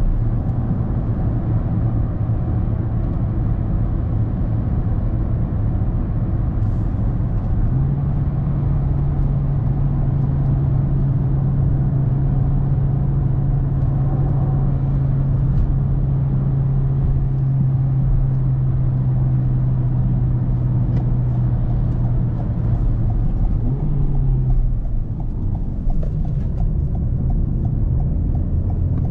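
Toyota Corolla 1.6 Valvematic four-cylinder petrol engine droning steadily, heard from inside the cabin at cruising speed over tyre and road noise. The engine note steps up in pitch about eight seconds in and falls back again about twenty-five seconds in.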